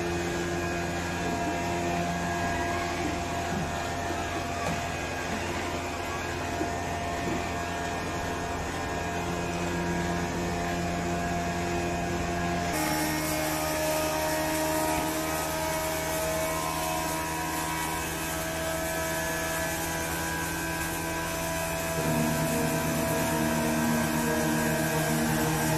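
Electric flour mill grinding machines running, a steady drone with several whining tones over a low hum. The tone shifts abruptly about halfway through and again near the end.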